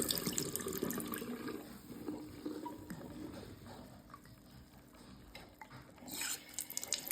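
Water in a sink, running and splashing as toys are rinsed, dying down over the first few seconds to a low trickle with a few small clinks, then surging up again about six seconds in.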